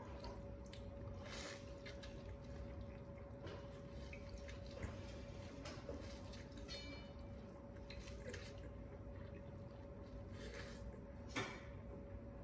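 Close-up eating sounds: wet, dripping noodles pulled by hand from a bowl of broth, then sucked in and chewed, in a string of small irregular wet clicks and slurps, with one louder slurp near the end.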